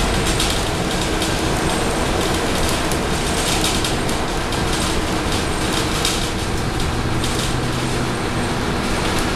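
Inside a Scania K230UB city bus under way: the Scania DC9 five-cylinder diesel running steadily beneath road and tyre noise, with frequent small rattles from the body and fittings.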